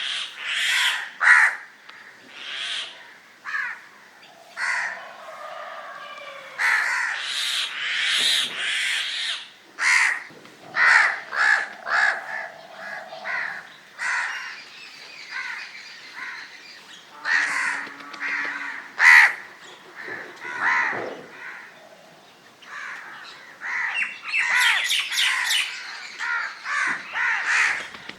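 Crows cawing, many short calls in quick, uneven succession, some overlapping.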